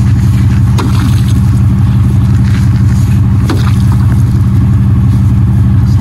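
A vehicle engine idles steadily and loudly throughout. A few sharp knocks of an axe breaking ice in a stock tank come through, about a second in and again past the three-second mark.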